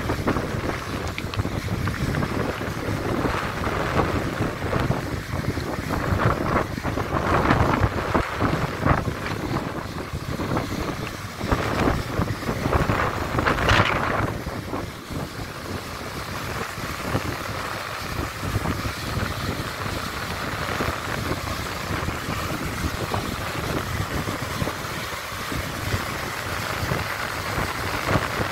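Fast mountain stream rushing over rock ledges in a small waterfall, a steady roar of water, with wind buffeting the microphone in gusts, strongest about halfway through.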